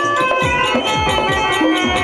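Traditional Karnataka folk-theatre music: a steady reed-like drone and melody over quick drum strokes whose pitch drops after each hit.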